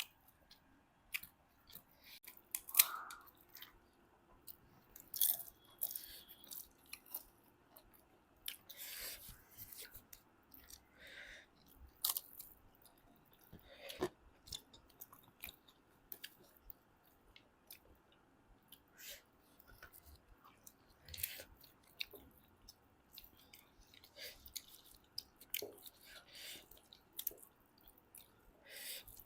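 People chewing and eating a pork meal up close, with irregular short wet mouth clicks, smacks and the odd crunch.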